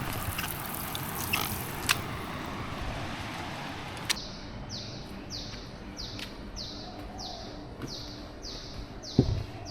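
A bird repeating a short, high, falling call about twice a second, starting about four seconds in. Before it there is a steady rushing noise with a few clicks, and near the end a couple of dull thumps.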